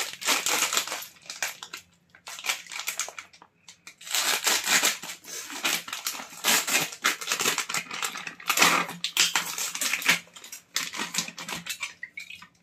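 Plastic bag of frozen sweet corn kernels crinkling and crunching as it is handled and cut open with a knife, in irregular bursts with short pauses.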